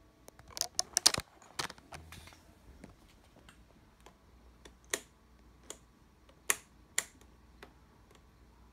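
Sharp plastic clicks from a handheld digital multimeter being handled, its rotary selector dial turned and buttons pressed. A quick cluster of clicks comes in the first two seconds, then single clicks spaced roughly half a second to a second apart.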